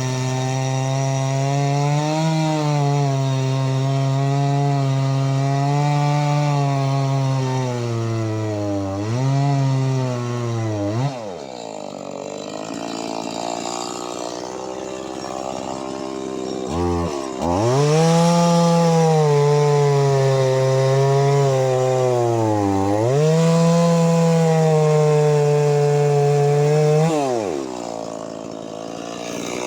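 Stihl MS 180 two-stroke chainsaw cutting through a thick log under load, with a slightly dulled Picco Micro chain. The engine holds high revs for about nine seconds, dips once, then drops back toward idle. It revs up again for a second cut of about ten seconds and drops back near the end.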